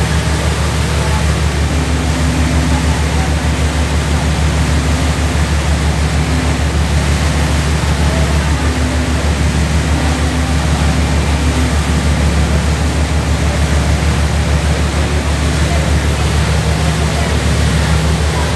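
Boat engine droning steadily, a low hum with an even pulse, over a constant rush of water churned up by the hull and wake.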